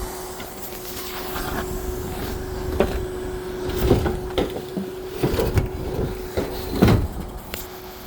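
Forklift handling scrap air-conditioner units: a steady hum with a series of sharp metal clunks and knocks, bunched from a few seconds in.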